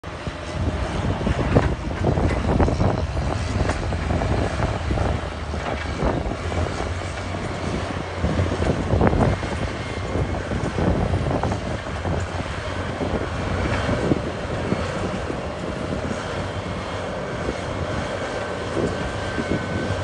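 Caterpillar crawler bulldozer's diesel engine running steadily under load as the blade pushes dirt, with clanks and knocks from the steel tracks and the soil and rock, busiest in the first half. A thin whine comes in near the end.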